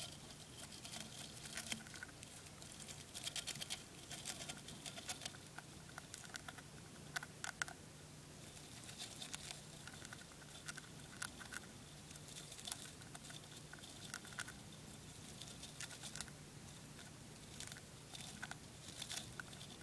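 Winter white dwarf hamster nibbling seeds off a sprig of spray millet: a faint, irregular run of tiny crunchy clicks over a low steady hum.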